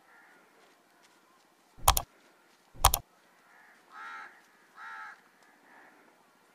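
Two sharp knocks about a second apart, then a crow cawing twice.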